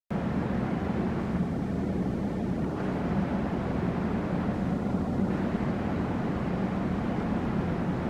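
A steady low mechanical drone with an even hiss over it. No bird calls stand out.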